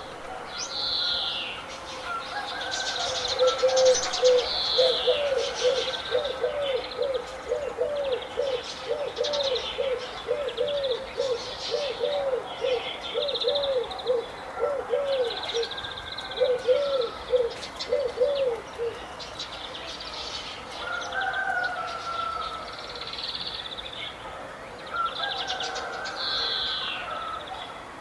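Several birds chirping and trilling together, with a lower call repeated about twice a second for much of the time, which stops about two-thirds of the way through.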